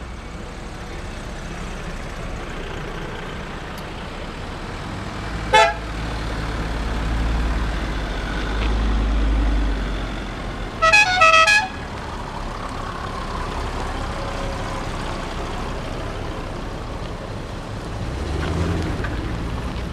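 Off-road 4x4s driving past one after another, engines running and tyres on the road, louder as each one nears. A car horn toots once about five and a half seconds in, then three or four quick toots around eleven seconds.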